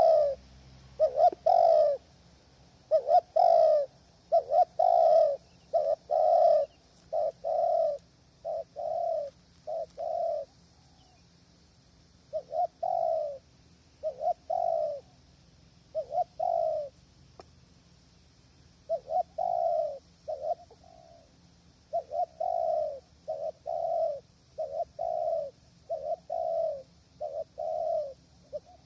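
Spotted dove cooing close by: a long series of short, low coos repeated over and over, broken by a couple of short pauses.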